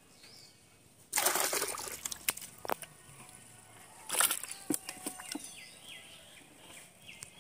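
Two short bursts of water splashing and flapping about three seconds apart, with a few light knocks between: a freshly unhooked small fish thrashing and being dropped into a bucket of water.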